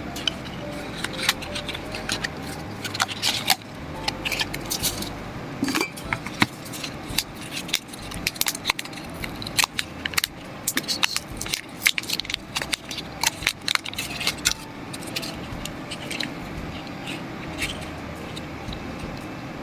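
Packaging and small accessories being handled by hand: a busy run of clicks, taps and rustles that thins out after about fifteen seconds.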